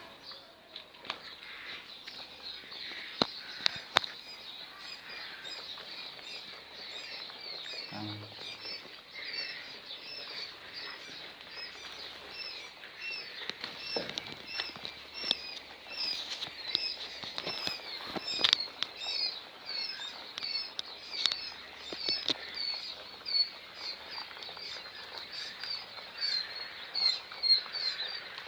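A brood of day-old white quail chicks peeping continuously, many short high chirps overlapping several times a second, with a few sharp clicks in between.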